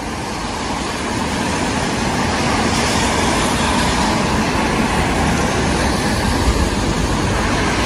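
Steady road-traffic noise from cars crossing the bridge overhead, an even rushing rumble that swells a little over the first couple of seconds and then holds.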